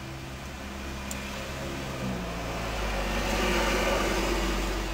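A motor vehicle's engine running nearby, its pitch shifting about two seconds in and its sound growing louder to a peak near four seconds before easing, as if passing by.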